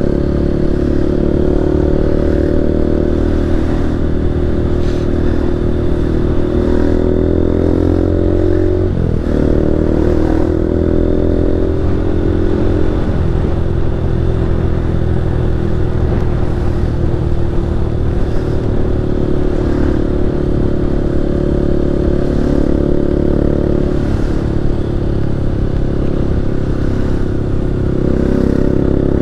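A 160 cc motorcycle engine running while riding. Its pitch dips briefly about nine seconds in and climbs back, then shifts again around thirteen seconds, as the rider changes speed.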